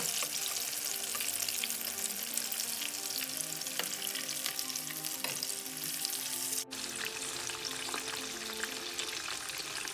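Marinated chicken pieces deep frying in hot oil in a wok: a steady, dense crackling sizzle of bubbling oil. The sound drops out briefly about two-thirds of the way through.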